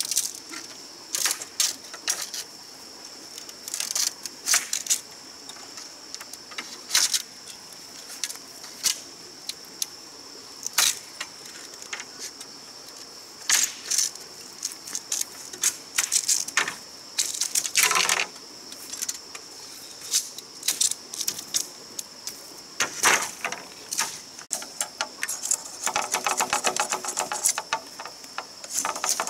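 Bamboo pole being split apart by hand, with sharp cracks and snaps at irregular intervals. Near the end comes a dense run of rapid crackling as a machete works along a bamboo strip. A steady high-pitched drone sounds underneath.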